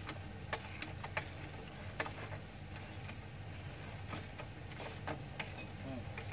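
Light, irregular metallic clicks and taps from hand work on an excavator's track roller and its bolts, over a steady low hum.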